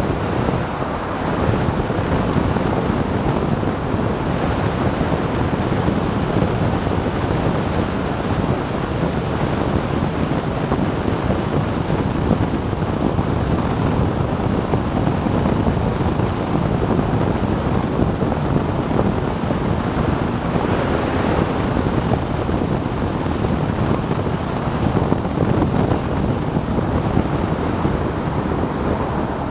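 Steady rush of wind over a motorcycle-mounted camera microphone on a BMW R 1200 GS Adventure ridden at about 90 to 110 km/h, with the bike's running noise mixed in.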